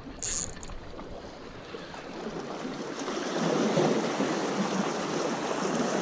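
Sea water washing and splashing against a boat's hull, growing louder about three seconds in, with a brief hiss just after the start.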